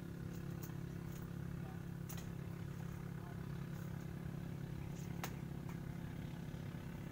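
A machine running with a steady low hum, with a few faint clicks.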